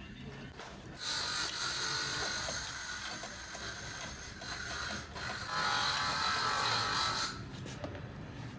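A small motor whirring in two bursts, the first about four seconds long and the second under two seconds.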